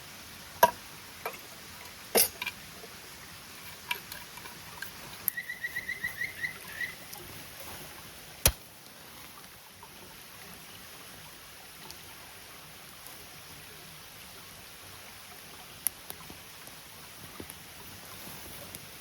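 Steady rush of water from a sabo dam, with scattered sharp clicks and knocks, the loudest about eight and a half seconds in. Between about five and seven seconds comes a short trill of about eight quick high notes.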